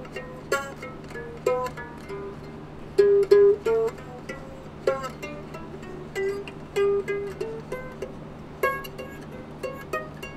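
Experimental plucked string instrument playing a single-note melody of separate plucked notes, loudest about three seconds in, over a steady low hum.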